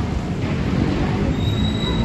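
Steady low rumble of passing vehicles, with a thin high squeal entering about two-thirds of the way through.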